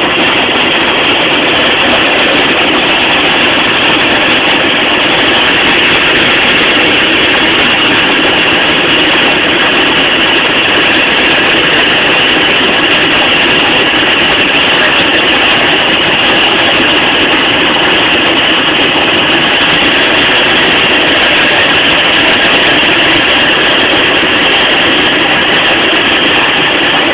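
Cessna 182 single-engine light aircraft in flight: a steady, loud, unchanging drone of piston engine and propeller.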